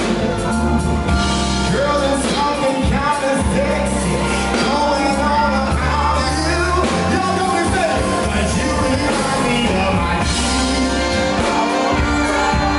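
Live band playing with a singer: electric guitar, bass guitar, drum kit and keyboard.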